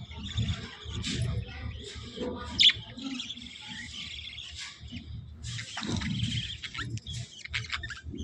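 Budgerigars chirping and warbling in quick, uneven bursts, with one sharp click about two and a half seconds in.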